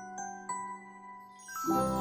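Background music: a melody of struck, ringing bell-like notes, joined near the end by a fuller, louder arrangement.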